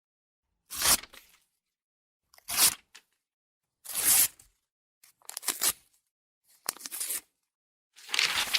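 A run of short, separate sound-effect clips, six in all, each a brief noisy burst lasting under a second, with dead silence between them.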